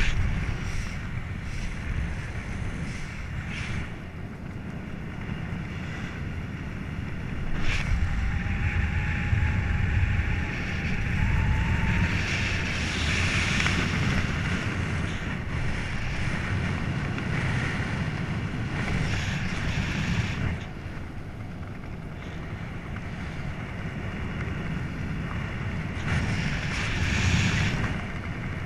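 Wind rushing over a camera microphone as a parachutist descends under an open canopy, gusting louder and softer; a faint thin tone sounds for a few seconds about a third of the way in.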